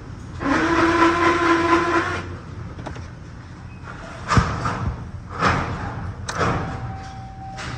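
2003 Chevrolet Silverado 1500's 4.8-litre V8 running at idle, about 900 rpm. A loud steady tone sounds for nearly two seconds near the start, and three short sharp bursts come later.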